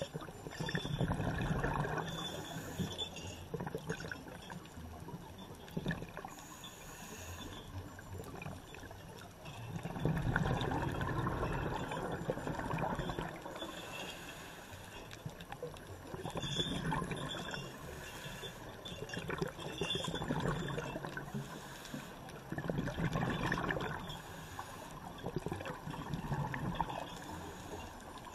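Scuba diver's exhaled bubbles rushing from the regulator in repeated bursts of a second or two, every few seconds, over a steady underwater wash, heard through an underwater camera.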